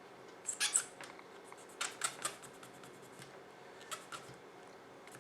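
Cotton swab scrubbing old adhesive residue out of the slide serrations of a Glock pistol: short, sharp, scratchy scrapes in three small clusters, about half a second in, around two seconds in, and around four seconds in.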